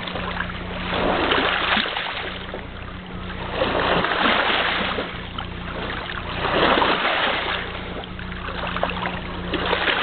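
Shallow lake water splashing and sloshing as a dog wades and thrashes close by, in rushing swells every few seconds, over a steady low hum.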